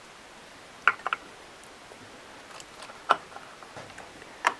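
A few sharp clicks and knocks from a chainsaw's housing and hand tools being handled on a workbench: three close together about a second in, another near three seconds, and one just before the end.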